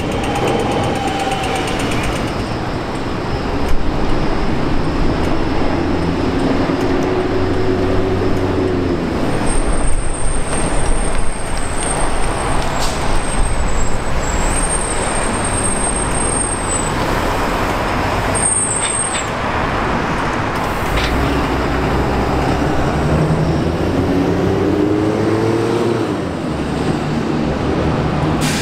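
Buses moving through a bus interchange: diesel engines running, rising in pitch twice as buses pull away, with a thin high squeal in the middle.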